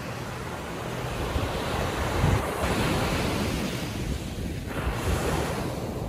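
Atlantic surf: waves breaking and washing up the beach. The rush builds to a peak about two to three seconds in, with a second surge about five seconds in. Low wind rumble on the microphone runs underneath.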